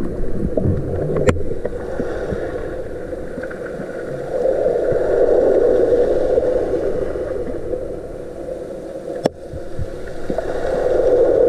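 Muffled underwater rushing picked up by a camera in its waterproof housing during a breath-hold dive. It swells about four seconds in and again near the end, with a sharp click about a second in and another about nine seconds in.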